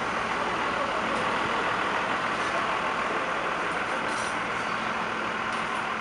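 Steady city street noise, with a heavy vehicle's engine running close by.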